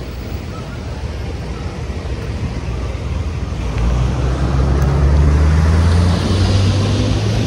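A motor vehicle drives close by over a steady street roar. Its low engine hum grows louder about four seconds in and steps up in pitch near the end, with a swelling hiss.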